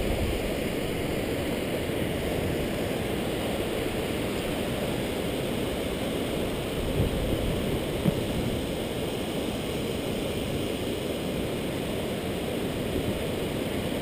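Steady rush of river water pouring over a low dam spillway. Two brief knocks stand out about seven and eight seconds in.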